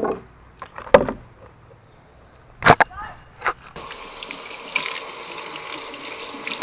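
A few sharp knocks from handling at the table, then, about four seconds in, a kitchen faucet starts running steadily as a freshly gutted brown trout is rinsed under the stream.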